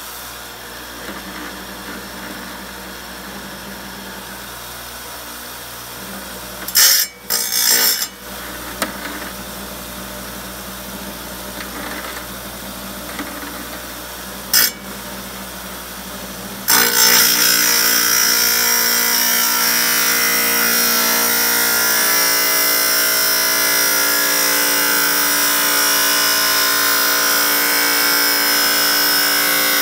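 Chicago Electric wet tile saw running with a steady motor hum while a rock is touched to the blade twice in brief loud bursts, then from a little past halfway the blade grinds steadily through the stone, much louder and hissier.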